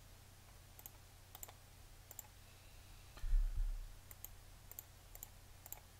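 Computer mouse button clicks: about eight short clicks at uneven intervals while image files are picked one by one to build a multiple selection. A low thump a little past the middle is the loudest sound.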